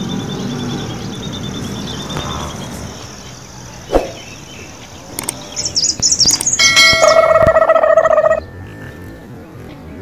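A small bird chirping in a rapid series for the first two or three seconds, and a single click about four seconds in. Then comes a quick run of rising whistle-like glides and a loud, steady bell-like chime lasting nearly two seconds, a sound effect that goes with a 'subscribe' button animation.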